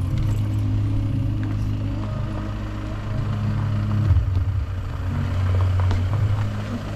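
Car engine running steadily at low revs, its pitch shifting slightly now and then, with occasional light clatter.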